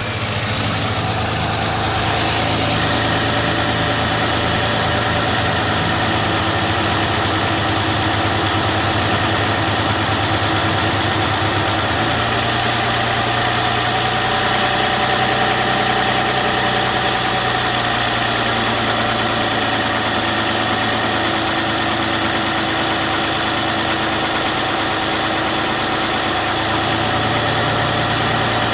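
2008 Toyota RAV4's 3.5-litre V6 idling steadily, with the ticking noise being diagnosed; the uploader says the tick grows louder after a cold start. The engine note shifts slightly about twelve seconds in.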